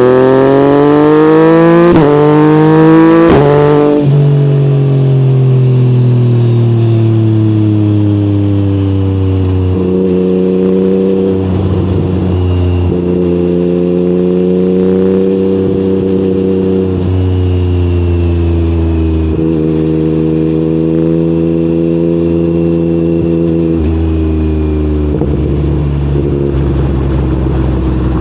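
Yamaha MT-09's CP3 crossplane three-cylinder engine through an Akrapovic exhaust, accelerating hard with the pitch climbing through two quick upshifts in the first four seconds. It then rolls off with the pitch falling and runs at steady cruising revs, with several shifts or throttle changes later on.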